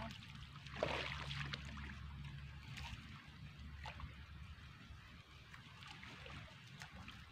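Shallow pond water sloshing and trickling as a fishing net is hauled in by hand and a person wades at the water's edge, with a louder splash-like burst about a second in.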